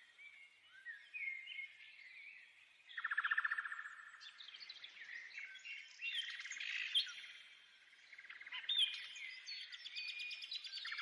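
Birdsong: several birds chirping and whistling, with fast trills about three seconds in, again around six seconds, and near the end.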